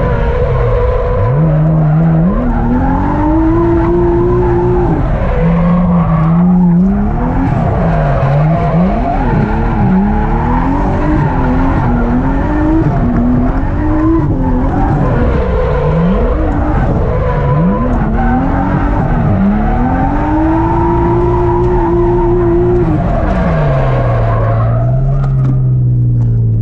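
Nissan Skyline R32's straight-six engine revving hard, its pitch rising and falling over and over through a drift run, with tyres squealing, heard from inside the cabin. About 24 seconds in, the revs fall to a low steady note.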